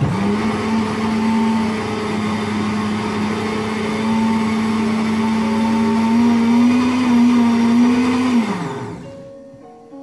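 Electric countertop blender running on a thick chocolate sauce mixture: the motor starts at once and holds a steady whine, rises slightly in pitch about six seconds in, then is switched off near the end and winds down.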